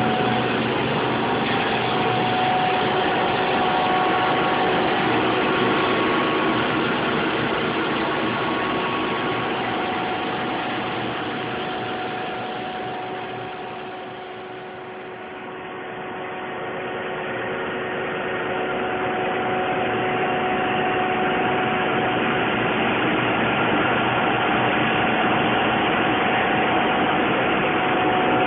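Steady running noise of a steam heat-pump plant built around a Rotrex turbo compressor, a constant hum with several steady tones in it. It dips briefly about halfway through and comes back up.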